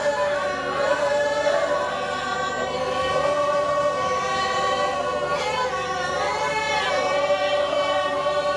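Singing of a Torajan funeral procession song, amplified through a microphone: voices in long held notes that waver and bend.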